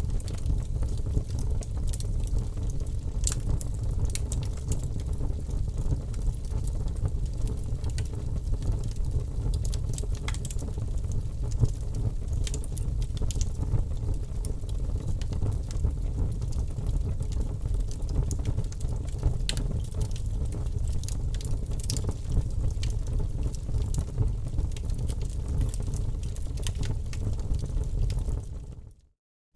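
Wood fire crackling in a fireplace: a steady low rumble of flames with scattered sharp pops. Near the end it fades out to a moment of silence, then starts again.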